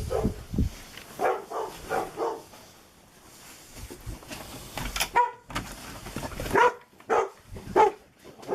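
Dogs barking in short, repeated barks: a quick run in the first couple of seconds, a lull, then more barks from about five seconds in.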